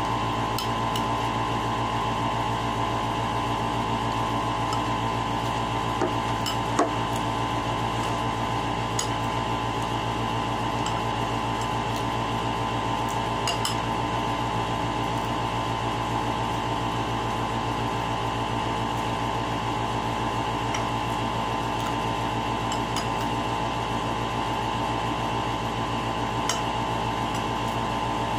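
A metal spoon clinking and scraping now and then against a ceramic bowl while eating, over a steady mechanical hum.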